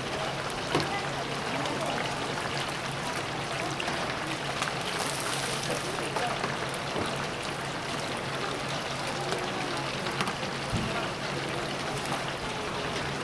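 Chicken pieces deep-frying in hot oil, the oil bubbling and sizzling steadily, with scattered small clicks and a low steady hum.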